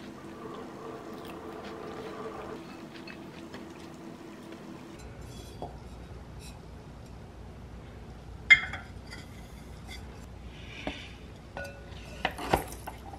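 Ceramic and plastic plant pots being handled: one sharp, ringing clink about two-thirds through, then a few light knocks near the end, over a low steady room hum.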